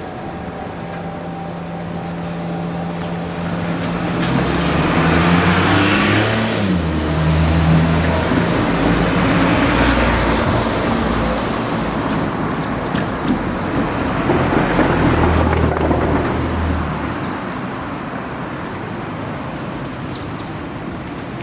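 Vehicles passing close by, loudest twice, with a low engine tone that drops in pitch as the first one goes past.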